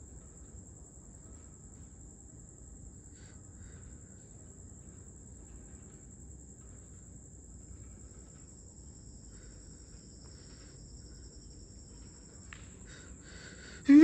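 Crickets trilling steadily at night, a second cricket at a lower pitch joining about halfway through and stopping shortly before the end, over faint low background noise and a few soft ticks.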